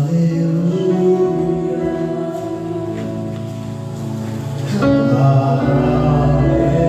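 Church worship music: many voices singing slow, held notes over instrumental accompaniment. A new chord comes in about five seconds in, with a deep bass note joining just after.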